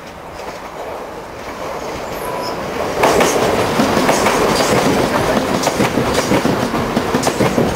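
A1 Pacific steam locomotive Tornado working up a steep 1:78 gradient, growing louder as it approaches and jumping up sharply about three seconds in. From then on it is a dense clatter of working sound with many sharp knocks.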